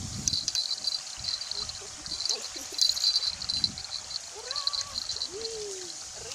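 Crickets chirping in a steady high trill, over the low wash of small waves breaking on the shore.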